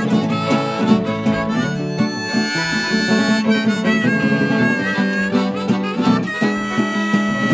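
Harmonica on a neck rack playing long held notes over a strummed resonator guitar, with a bowed fiddle: an instrumental break in an acoustic folk song.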